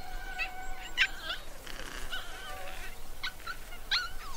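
Raccoon dog pups giving short, high whining calls, about seven scattered over a few seconds, over a faint steady drone.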